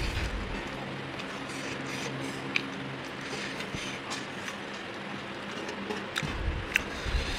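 Eating sounds from a close microphone: a few sharp mouth smacks or clicks, spread through the clip, over a steady background hum.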